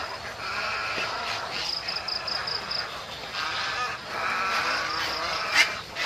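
A roost of white egrets in trees, many birds giving hoarse croaking calls over one another. A high insect trill pulses briefly early on, and a single sharp click, the loudest sound, comes near the end.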